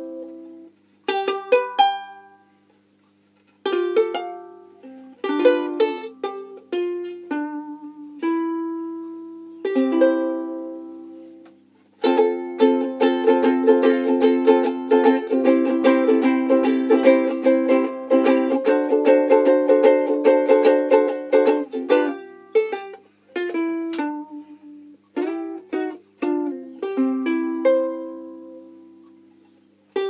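All-mahogany soprano ukulele with an ebony fingerboard being strummed: separate chords struck and left to ring out with short pauses, then about ten seconds of fast, continuous strumming from about twelve seconds in, then single chord strums ringing again near the end.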